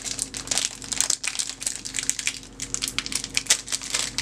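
Thin clear plastic bag crinkling in the hands as a small silicone dice mold is handled and unwrapped, in a quick irregular run of crackles.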